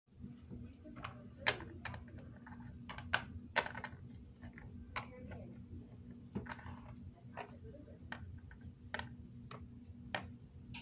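Irregular light clicks and taps, about one or two a second, over a steady low hum: handling noise as the phone is moved about over a table of plastic toy figures.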